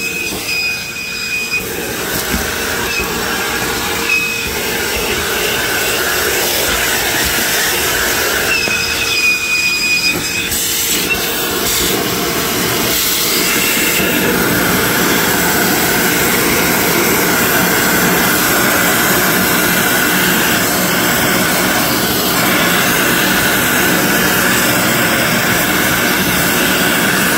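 Vacuum cleaner running steadily, its hose sucking gunk and debris out of a car's rain well. A high whistle comes and goes three times in the first ten seconds.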